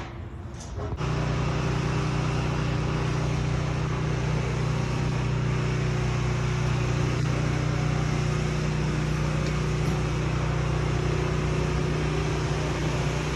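A machine's motor kicks on about a second in and then runs steadily at constant speed, a loud even hum with hiss.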